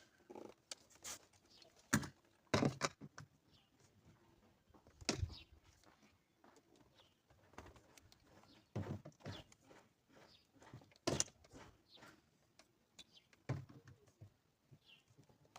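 Plastic push-pin trim clips being worked out of a Volvo XC70 door: irregular sharp clicks and knocks with short pauses between, the loudest about 2, 5 and 11 seconds in.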